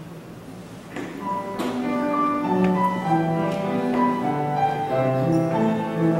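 A small chamber ensemble of violins, flute and piano starts playing about a second in, notes entering one after another and building into a flowing arrangement of a Taiwanese song medley.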